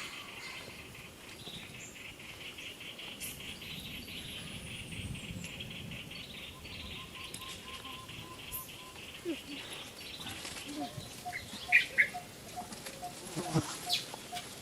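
Insects buzzing in a steady, rapidly pulsing high drone that fades out about halfway through. A faint regular ticking about twice a second follows, and a few short, sharp high chirping calls near the end are the loudest sounds.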